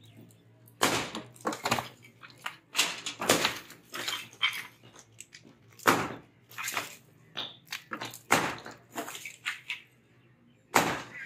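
Hand hammers striking and breaking a reinforced concrete slab: irregular sharp knocks, roughly one or two a second, as chunks of concrete are broken away from the rebar.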